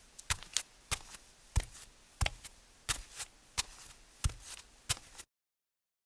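A run of sharp taps in an even rhythm, about three every two seconds, each strong tap followed by a lighter one, like a heel-and-toe pattern. The sound cuts off abruptly a little after five seconds in.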